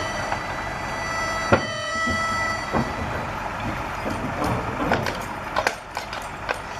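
Draught horse's hooves knocking on the wooden ramp of a livestock trailer as it is led out, several separate knocks through the second half, over a steady vehicle rumble.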